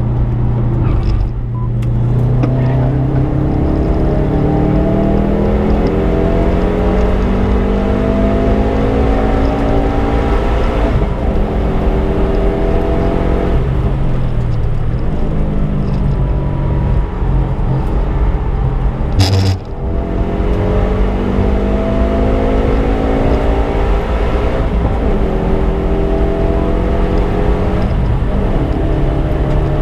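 Subaru Impreza's flat-four engine pulling hard on track, its pitch rising steadily through the revs, dropping away about a third of the way in, then rising again. A sharp crack cuts through about two-thirds of the way in.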